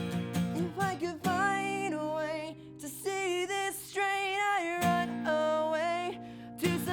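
Acoustic guitar strummed and then held in ringing chords, with a voice singing long drawn-out wordless notes over it.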